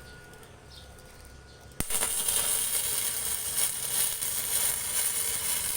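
Small Orion inverter welder striking an arc about two seconds in, followed by the steady crackling hiss of an electric welding arc burning.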